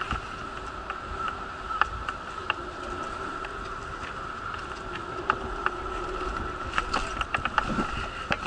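Wheelchair rolling along a paved road: a steady high whine under a low rumble, with frequent short clicks and rattles as it goes over bumps.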